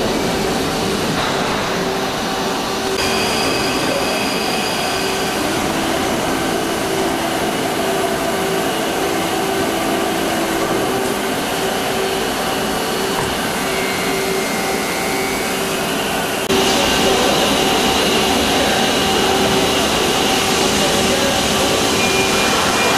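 Nakamura-Tome SC-450LL CNC lathe turning a long steel shaft held in a steady rest: a steady machine hum with several held tones from the spindle and the cutting. About sixteen seconds in the sound jumps suddenly louder and hissier.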